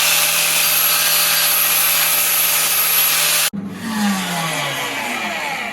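Power cutting tool, likely an angle grinder, running loud and steady while cutting steel bracket stock, then switched off about three and a half seconds in and spinning down with a falling whine.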